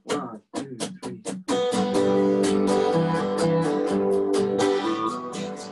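Song intro on a strummed acoustic guitar with an electric guitar. A few short, separate strums in the first second and a half, then full chords ringing with steady strumming.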